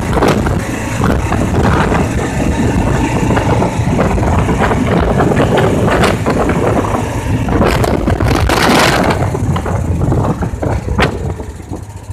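A John Deere 4x2 Gator utility vehicle being driven, its engine running steadily under frequent rattles and knocks, with a louder rush of noise about eight to nine seconds in. The sound drops in level near the end.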